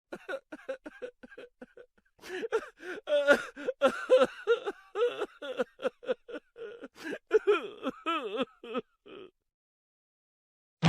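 Comedic laughter sound effect: a voice giggling in many quick, short bursts with a bending pitch, stopping about nine seconds in.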